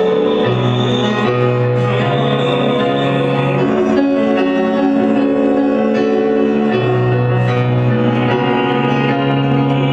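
A live band playing an instrumental passage of a song with no singing: long held chords that change every two to three seconds over a steady bass line.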